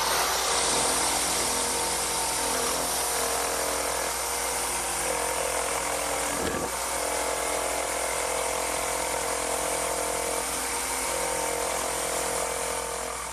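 Electric jigsaw running steadily, its reciprocating blade cutting through a hardwood panel to clear out a mortise between drilled holes.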